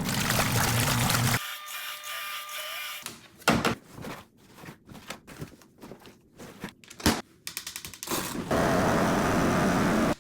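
Water pouring into a small portable washing machine tub, cut off suddenly about a second and a half in; then light clicks and two sharp knocks of handling the machine, and near the end a steady rushing noise starts abruptly.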